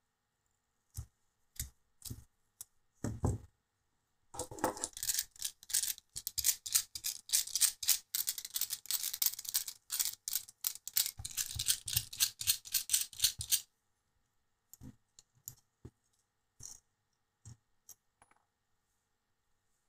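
Small screws being undone with a hex screwdriver from a carbon-fibre drone frame and its motors. A few separate clicks are followed by about nine seconds of rapid, scratchy metal-on-metal clicking, then scattered clicks and taps as the parts come loose.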